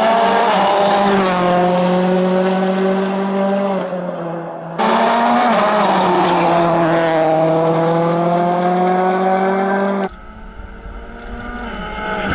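Ford Fiesta RS WRC rally car's engine running hard at high revs, its note wavering and sagging slightly, with abrupt cuts about five and ten seconds in. After the second cut a quieter, more distant engine note rises near the end.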